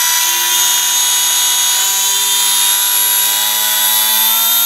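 Electric motor and propeller of an E-flite UMX PT-17 Stearman ultra-micro RC biplane running under throttle during a bench test: a steady whine that rises slowly in pitch.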